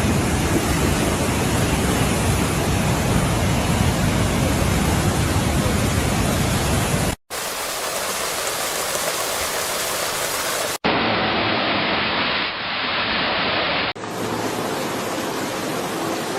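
Rushing floodwater in four clips cut one after another, each a steady rushing noise that stops abruptly at the cut.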